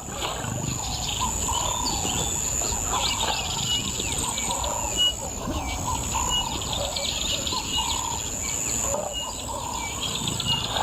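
Birds chirping and calling, with one short high note repeated about once a second, over a steady high-pitched hiss.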